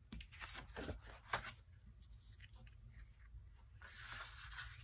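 Faint rustling and light taps of cardstock and paper being picked up and slid across a craft mat, with a soft scraping rustle near the end.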